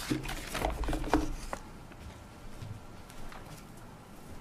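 Shuffling and handling noises at a podium's microphones for about a second and a half, then quiet room tone with a few faint clicks.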